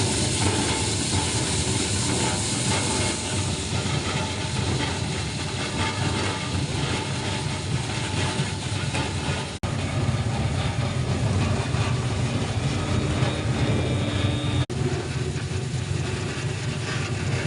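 Potato peeling machine running steadily: a loud, continuous mechanical noise with a low hum and a hiss.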